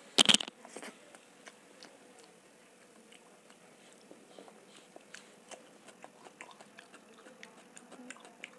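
Close-miked eating sounds of rice and dal eaten by hand: a loud sharp smack just after the start, then soft wet chewing and mouth clicks with light squishing of rice by the fingers.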